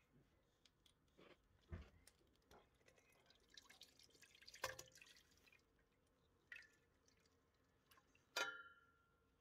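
Engine oil draining from the scooter's crankcase into a metal drain pan, faint: a few small knocks and ticks, a soft pouring and splashing patter around the middle. Near the end comes a sharp clink that rings briefly, the loudest sound.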